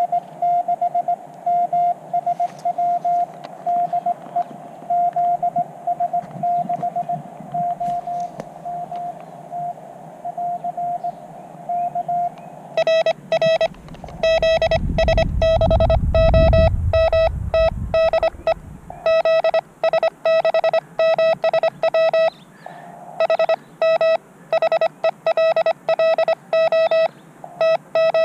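Morse code (CW) from a portable ham radio transceiver: a single tone of about 700 Hz keyed in dots and dashes. For the first twelve seconds or so the signal is fainter over a hiss; after that it is louder and harsher, the sidetone of the operator sending on a paddle key. A low rumble joins in for a few seconds in the middle.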